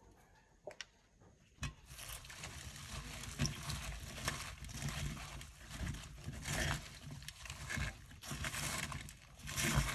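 Hands mixing knotted taro leaves and spice powder in a clay pot: rustling and soft irregular knocks of the leaves and fingers against the pot. It starts about a second and a half in, after a couple of small clicks.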